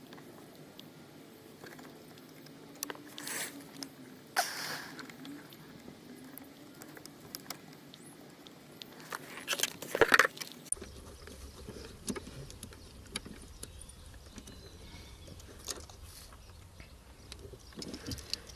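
Car keys jangling with scattered clicks and scrapes of hands at the BMW E46's steering column and its plastic trim, with a louder clatter about ten seconds in. A low steady hum runs under the faint clicks in the second half.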